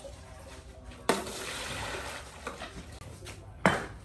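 Water scooped from a large clay water jar poured into a metal basin, splashing for about a second, then a sharp knock near the end.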